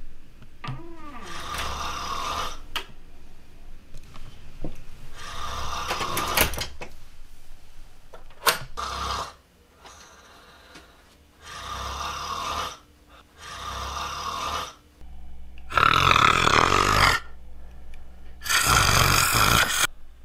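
A man snoring, one long snore every two to three seconds, the last two much louder than the rest.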